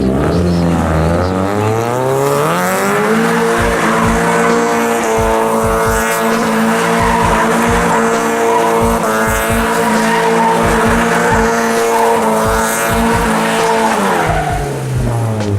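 Mazda Miata's four-cylinder engine revving up over about three seconds and held at high revs for some ten seconds with tyres squealing as the car spins donuts, then dropping back near the end.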